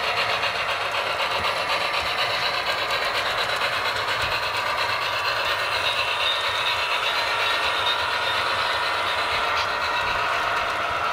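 HO scale Union Pacific model train running along the layout track: a steady rushing rumble with a quick, even ripple.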